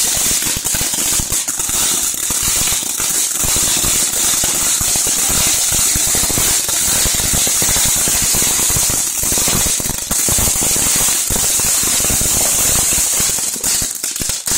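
Several ground fountain fireworks spraying sparks: a steady, loud hiss mixed with dense, rapid crackling pops.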